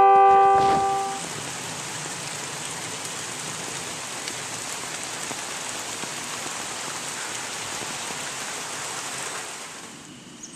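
A car horn blaring on one steady chord, cut off about a second in, as after a crash. Then a steady hiss of rain falling, fading near the end.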